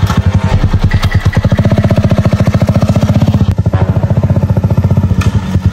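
Small motorcycle engine running at idle close by, a rapid, even putter.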